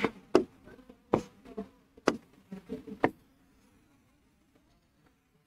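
Hand tapping an interactive whiteboard screen: about five sharp taps over the first three seconds, with a faint low hum between them.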